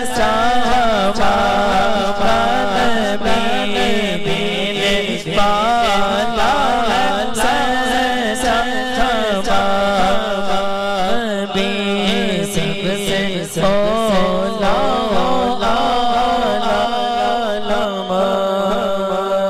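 A male voice reciting a naat, a devotional chant sung in long, wavering, ornamented phrases, over a steady low drone.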